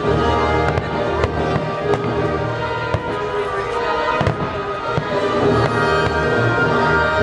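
Aerial fireworks shells bursting in sharp bangs about every half second to a second, over music with sustained notes and a bass line.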